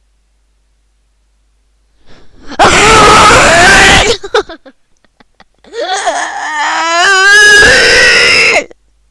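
A very loud, exaggerated vocal outburst: a harsh shrieking blast about two and a half seconds in, then, after a short pause, a long wailing cry whose pitch shakes and wobbles.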